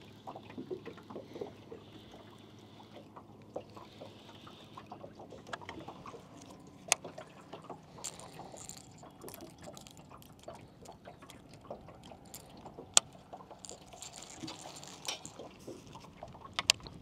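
Small waves lapping against a boat hull, with a faint low hum for the first few seconds. A few sharp clicks from handling a fishing rod and baitcasting reel cut through it, the loudest near the end.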